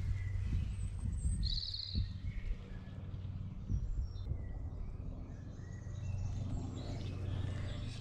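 Small woodland birds singing, with one short high trill about a second and a half in and a few faint high notes after it, over a steady low background rumble.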